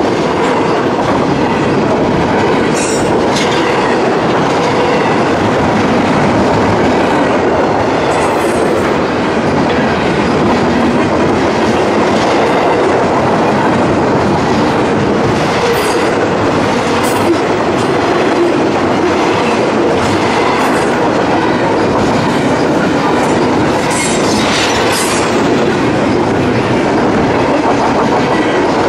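Freight train cars rolling past close by, with a steady loud rumble and wheels clattering over rail joints. Brief sharp metallic squeals or clanks cut through now and then.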